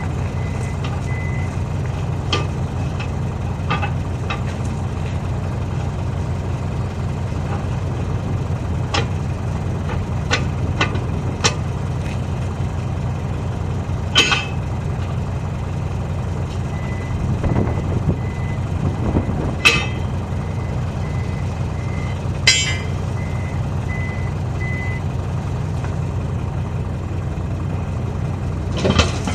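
A heavy diesel engine idling steadily while a reversing alarm beeps in a series of short, even beeps, once near the start and again for several seconds past the middle. Sharp metallic clanks and knocks come every few seconds, with a louder one near the end.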